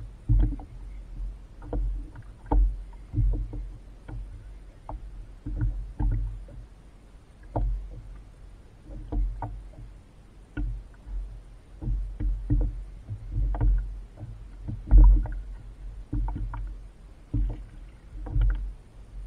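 Water slapping and sloshing against a kayak hull, with irregular low knocks and sharp clicks from handling on board. The loudest knock comes about three-quarters of the way through.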